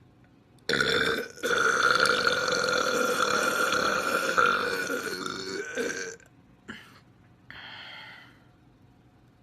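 A long, loud burp lasting about five seconds, starting about a second in with a brief catch just after it begins. A fainter, shorter sound follows about two seconds later.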